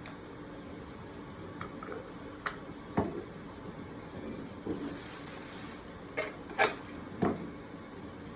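Parts and packaging of a fiber-optic star-light kit being handled: a handful of sharp clicks and knocks, the loudest about two-thirds of the way in, with a short rustle near the middle.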